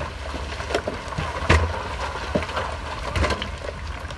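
A heavy earthmoving machine's diesel engine rumbles steadily, with a series of sharp knocks and clanks. The loudest knock comes about a second and a half in and another just after three seconds.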